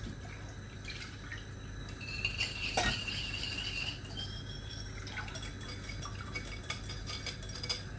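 Kitchen utensil scraping, clinking and stirring against a bowl and saucepan as a thin egg-yolk and lemon cream mixture is mixed and transferred. A thin squeak of metal on metal comes in the middle, with a knock, then quick rapid clinks near the end.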